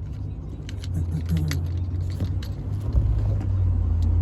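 Small plastic clicks and rattles of a master window switch being handled and pried apart, over a steady low hum.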